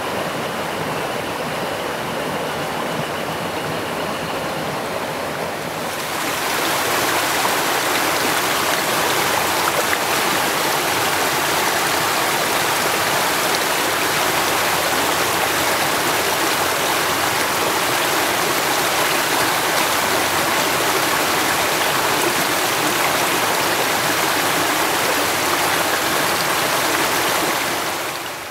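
Woodland creek in spate, its water rushing steadily. About six seconds in the rush grows louder and fuller, where the water churns over and under a fallen log, and it eases near the end.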